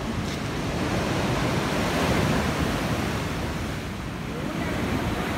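Ocean surf breaking and washing up a sand beach, with wind buffeting the microphone. The wash swells about two seconds in and eases off near four seconds.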